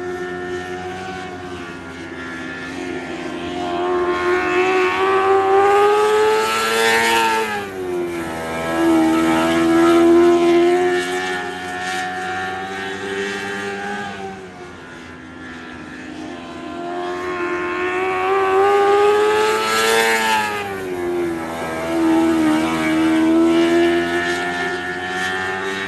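Lightning sprint car engine lapping a track. It passes twice, about 13 seconds apart; each time the pitch climbs and grows louder, then drops sharply as the car goes by.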